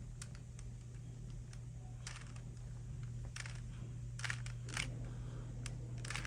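Rubik's Cube being twisted by hand: irregular plastic clicks and clacks as its layers turn, more frequent in the second half, over a steady low hum.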